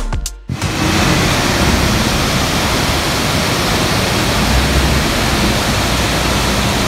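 Water spilling over the closed gates of a canal staircase lock, a loud steady rush of falling water that starts about half a second in.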